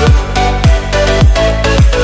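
Electronic dance music with a deep, falling kick drum on a steady beat, about two beats a second, under sustained synth tones.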